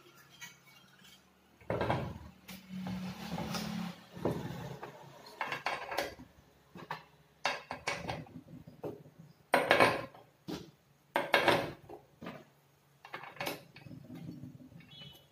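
Metal parts of a power tiller's cooling fan assembly (fan housing, pulley hub, washers) clattering and knocking as they are handled and set down on a wooden workbench. There is a scraping stretch about two seconds in, then a string of separate knocks and clinks, the loudest two near the middle.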